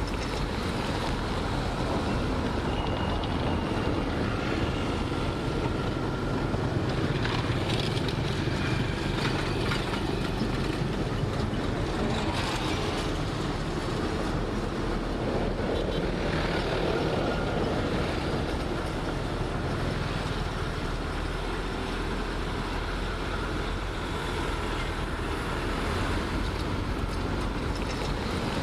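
Diesel engines of heavy earthmoving machinery running steadily under work, with a few brief clanks partway through.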